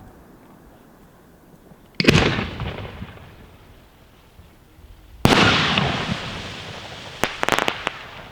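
Fireworks: two loud booming bangs about three seconds apart, each echoing away slowly, followed near the end by a quick rattle of sharp cracks.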